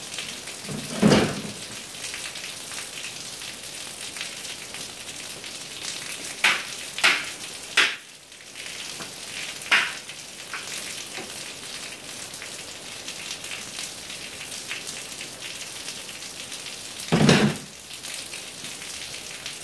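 Heavy rain pouring down onto pavement, a steady hiss, heard from an open garage. A few short, sudden louder sounds break through it: about a second in, three close together around six to eight seconds in, one near ten seconds, and the loudest near the end.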